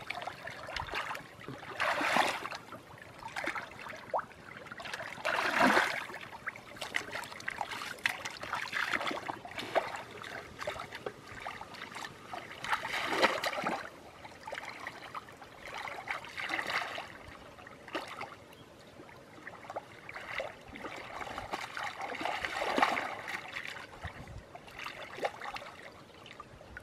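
Muddy water sloshing and splashing as a man wades and gropes for fish with his hands in a shallow ditch. The splashes come in irregular surges every few seconds, with a low trickle between them.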